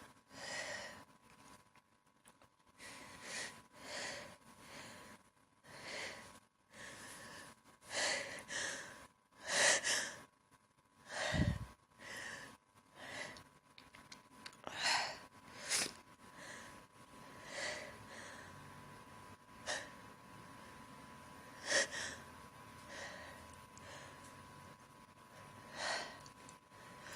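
A person's short gasping breaths, about one a second, between sneezes, the loudest near the middle. A faint steady whine runs underneath.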